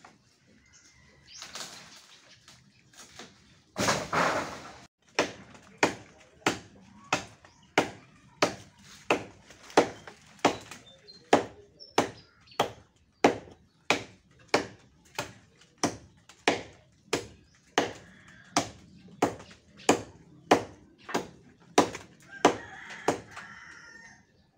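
A bladed tool, such as a bolo or axe, chopping into a tree branch in a long, steady run of strokes, a little under two a second. A loud rustling burst comes about four seconds in, just before the chopping starts.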